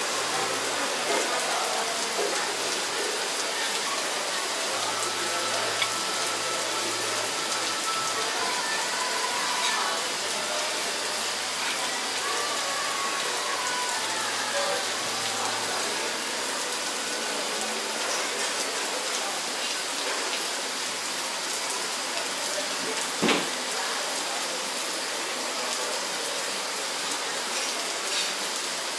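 Pouring tropical rain falling steadily, an even hiss of water on surfaces. A single sharp knock stands out about three quarters of the way through.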